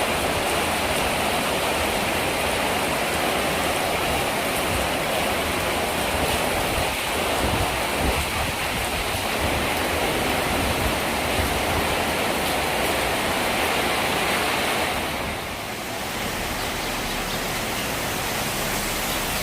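Strong, gusty storm wind with rain, a steady rushing noise that eases a little about fifteen seconds in.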